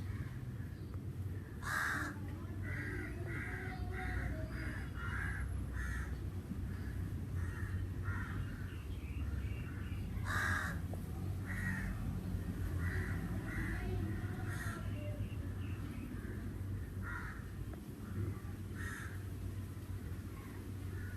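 Crows cawing repeatedly, in short calls and quick runs of several caws, over a steady low rumble.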